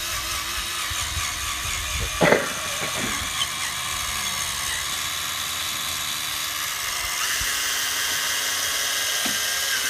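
Cordless drill spinning a polishing pad against a truck's headlight lens, buffing it with polishing compound. It runs steadily, with one brief louder noise a little over two seconds in, and stops suddenly at the end.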